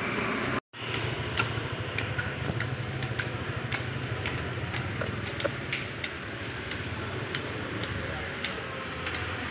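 Steady low hum of a street setting with irregular sharp clicks and taps of a knife and utensils on a wooden cutting board as cassava getuk is cut and handled. The sound cuts out completely for a moment less than a second in.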